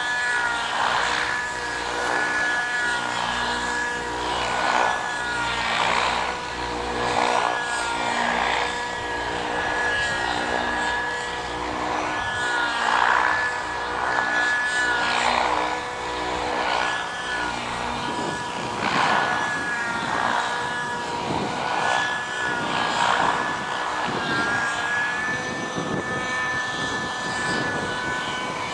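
Freya 90 model helicopter's small glow-fuel engine running at high revs with a steady whine. The rotor blades swoosh loudly about every second or so as the helicopter is thrown through aerobatic manoeuvres, and the lower engine notes change about two-thirds of the way through.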